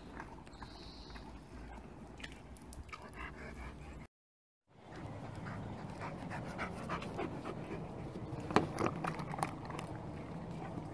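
Irish wolfhounds panting, with a run of sharp clicks in the second half, loudest about eight and a half seconds in. The sound drops out for half a second about four seconds in.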